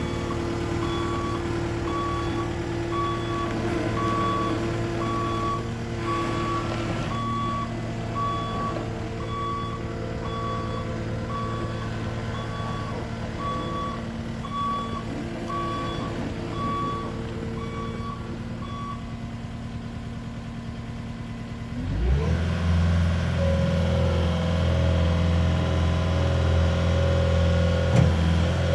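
CAT 259D loader's diesel engine running while its reversing alarm beeps about once a second. The beeping stops about two-thirds of the way through, and soon after the engine revs up to a higher, louder steady speed.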